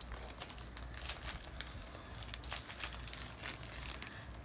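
Plastic packaging crinkling in quick, irregular crackles as small plastic bags of items are handled and opened.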